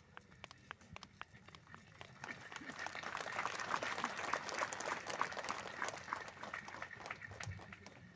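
Congregation applauding: a few scattered claps at first, swelling into a full round of applause about two seconds in, then dying away near the end.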